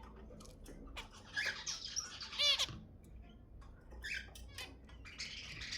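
Zebra finches calling: a scatter of short chirps and ticks, with several bursts of calls and one loud nasal call about two and a half seconds in.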